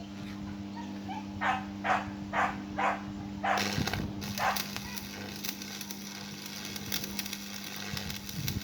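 Welding arc crackling and sizzling steadily, starting about three and a half seconds in, over a steady electrical hum. Just before the arc strikes, a dog barks five times in quick succession.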